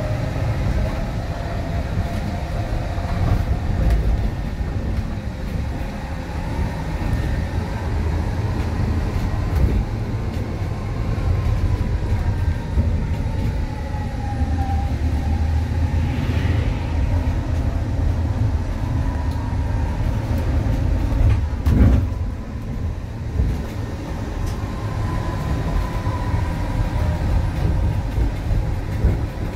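Cabin sound of a Higer electric minibus driving: a steady low road-and-body rumble with a faint motor whine that slowly rises and falls in pitch as the speed changes. A single sharp knock comes about two-thirds of the way in.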